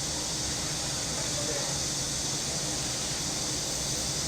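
Summer cicadas buzzing in a steady, continuous chorus, a high hiss-like drone over a low background rumble.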